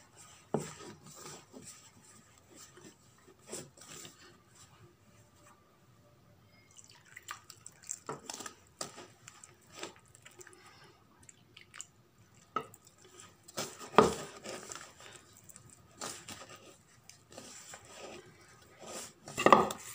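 Hands kneading wet maida dough in a plastic bowl: irregular soft wet squishes and taps, with a few louder knocks against the bowl, the loudest about 14 seconds in.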